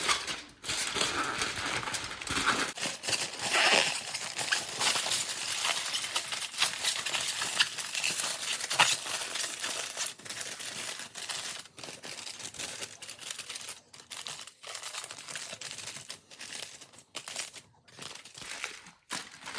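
Aluminium foil crinkling and crackling irregularly as its edges are folded and crimped up around a brisket to form a foil boat, easing off a little toward the end.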